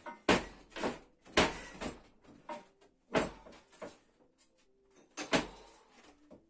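Irregular sharp metallic knocks and clanks, about ten in all, each with a short ring, as steel parts are struck or handled while the old part of a homemade drill press is taken off.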